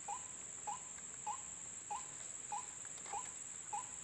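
White-breasted waterhen (ruak-ruak) calling: a short, hooked 'kwak' note repeated evenly about every 0.6 seconds, seven times. Behind it runs a steady high-pitched insect drone.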